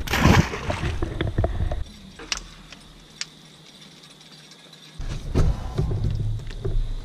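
Fishing reel clicking and rattling for the first couple of seconds, then quieter; a low rumble starts abruptly about five seconds in.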